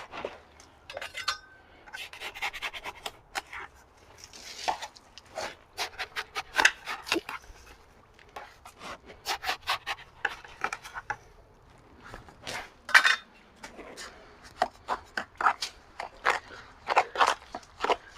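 Hand tool scraping and knocking against stucco in many short, irregular strokes.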